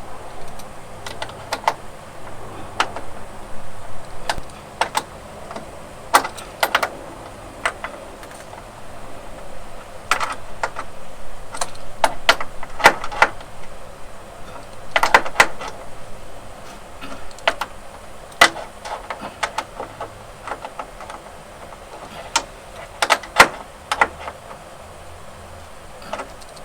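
Irregular metallic clicks and clinks of hand tools working a nut on the RV hood's adjuster bolt, some strikes sharper than others.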